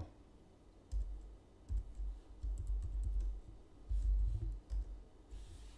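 Keys of a computer keyboard being typed, a handful of short clicks in irregular runs from about a second in to near the end.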